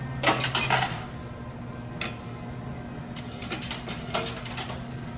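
Coins clattering in a coin pusher arcade machine: a quick burst of metallic clinks about a quarter second in, then a single clink and a few smaller clusters of clinks, over a steady low hum.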